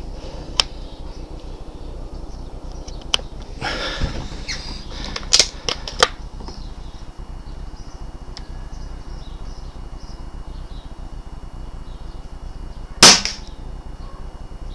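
Several sharp clicks and knocks from handling a BSA R10 pre-charged pneumatic air rifle, then, about thirteen seconds in, a single loud shot as it fires a slug.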